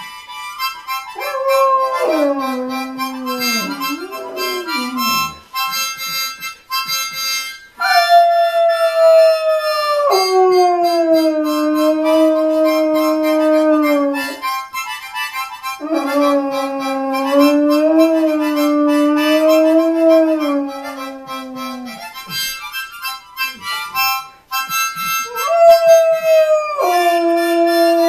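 A Great Pyrenees mix howling along with music. Several long drawn-out howls, the first sliding down in pitch, with short breaks between them over a quick steady rhythm.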